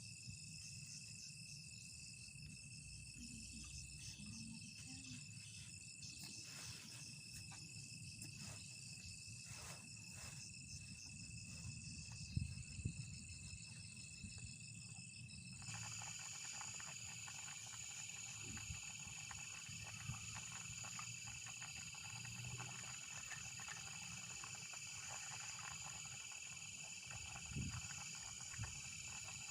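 Forest insects trilling in a steady high chorus, with a low rumble underneath. About halfway through, the chorus abruptly changes to a different, higher steady trill. A couple of soft knocks come just before the change.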